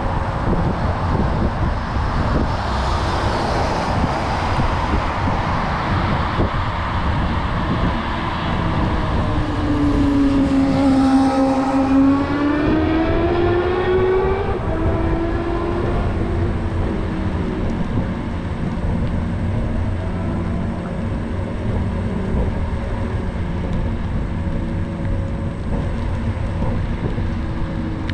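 Continuous rumble and wind noise from an electric scooter ride. Around the middle, a whine falls in pitch and then rises again.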